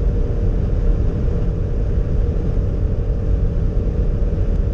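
Alfa Romeo Stelvio's 2.0-litre turbocharged four-cylinder engine pulling hard at full throttle in seventh gear, just under 5,000 rpm, at about 210 km/h. Heard inside the cabin as a steady engine drone mixed with wind and tyre noise.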